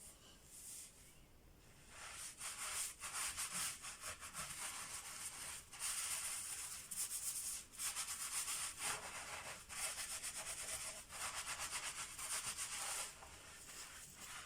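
Hands scrubbing and rubbing hair during washing: a rough, rasping rub in quick strokes that starts about two seconds in and stops about a second before the end.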